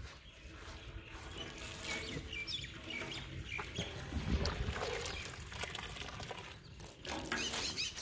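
Boiled macaroni and hot water being drained through a cloth into a metal basin, with a wood fire crackling and birds calling in the background.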